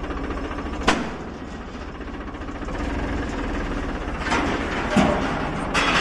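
Tractor diesel engine running steadily with a low, even chug. A sharp metallic knock comes about a second in, and louder noisy bursts come near the end.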